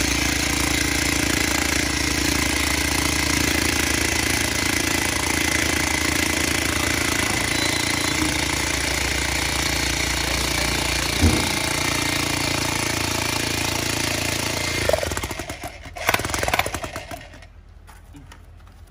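Electric demolition hammer driving a copper earth rod into the ground, hammering steadily and rapidly, then stopping about fifteen seconds in. A few short knocks follow.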